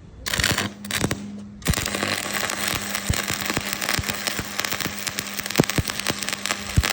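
Stick (shielded metal arc) welding arc crackling and spitting with many sharp pops. The arc strikes just after the start, drops out for about half a second a little after one second in, then restarts and crackles steadily over a low steady hum.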